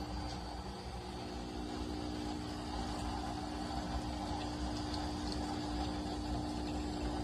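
De'Longhi Dedica Duo espresso machine's pump running with a steady hum.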